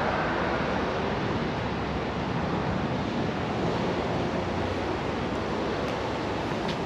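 Steady wind rushing on the microphone over the hiss of street traffic.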